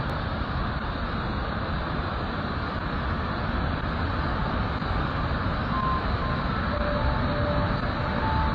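Dense, steady rushing of silt-laden water blasting from a dam's spillway outlets into a cloud of spray, heaviest in the low rumble.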